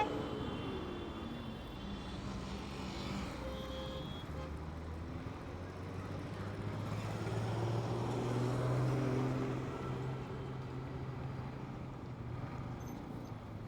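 Road and traffic noise heard from a motorbike riding through city traffic. A low engine drone swells louder near the middle and then fades, and short horn tones sound near the start.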